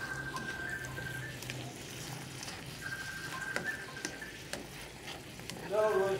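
Yardlong beans, pechay and tofu sizzling in a nonstick pan while a spatula stirs them, with scattered clicks of the spatula against the pan. A brief voice sounds near the end.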